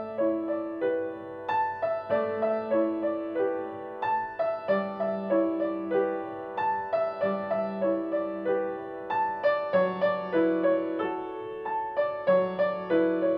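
Background piano music: a gentle repeating pattern of single notes over lower sustained notes, with a steady pulse.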